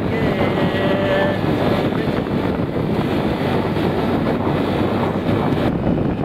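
Wind rushing over the microphone while riding along a road, with the vehicle's running noise underneath; the noise shifts slightly near the end.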